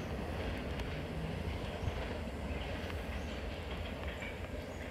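A receding passenger train, its wheels rumbling steadily over the railway viaduct, the sound slowly fading as it moves away.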